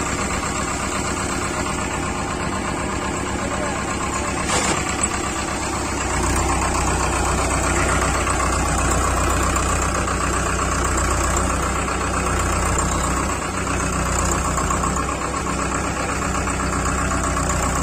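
Powertrac Euro 55 tractor's diesel engine running steadily, getting louder about six seconds in. A single brief knock sounds about four and a half seconds in.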